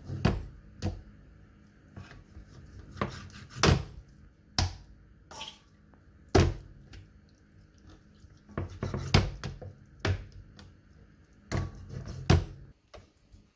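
Irregular sharp knocks and taps of a kitchen knife and raw chicken drumsticks against a wooden bamboo cutting board while slits are cut into the drumsticks and they are moved about.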